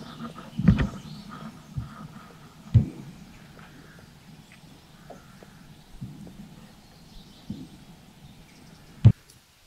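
Three sharp shots from a semi-automatic .22 air rifle: one about a second in, another near three seconds, and a short, sharp one near the end, with a few fainter knocks between.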